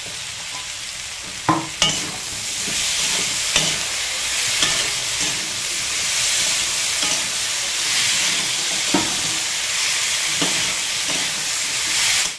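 Potato sticks and tomato pieces sizzling in hot oil in an aluminium kadai, stirred with a metal spatula that scrapes and knocks against the pan now and then. The sizzling grows louder about two seconds in.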